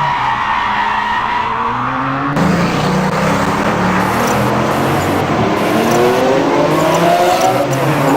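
Dubbed-in car sound effects: an engine revving with tyre skidding, growing louder about two and a half seconds in, with the engine pitch climbing over the last few seconds.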